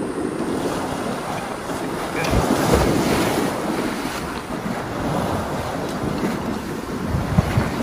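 Wind buffeting the microphone over moving river water, with a louder rushing stretch a couple of seconds in.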